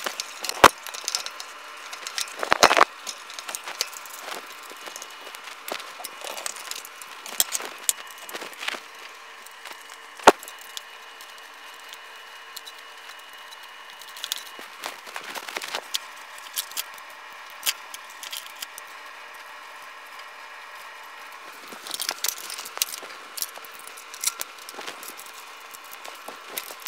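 Sped-up assembly sounds of a fat-tyre e-bike's front end: scattered metallic clicks, knocks and rattles as the front wheel, fender and headlight are fitted to the fork. The sharpest knocks come near the start and about ten seconds in.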